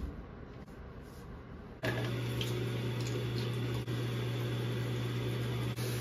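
Bathroom tap running into a sink under a steady low hum, starting abruptly about two seconds in, with a few light clicks of a toothbrush against the sink. Before that, a quiet room with faint rustling of bedding.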